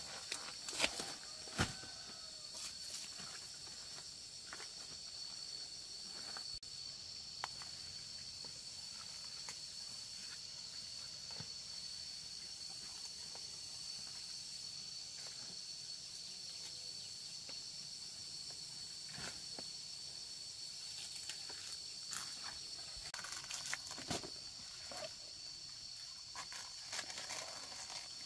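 A steady, high-pitched chorus of insects in the background, with scattered clicks, knocks and rustles of someone moving about on foot.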